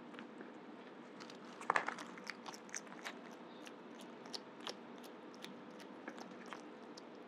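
A pet animal biting and chewing live worms: one loud crunchy bite about a second and a half in, then a run of small scattered clicks and crunches.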